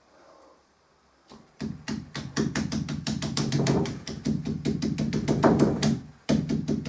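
Rapid scrubbing strokes worked against a large painted board, a dense run of scratchy taps that starts about a second and a half in and stops about six seconds in.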